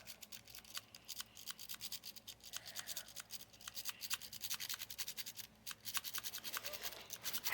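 A lock-pick rake scrubbed back and forth in the keyway of a transparent practice lock under a tension wrench, the metal pick scraping over the pins: a rapid, scratchy clicking of several strokes a second.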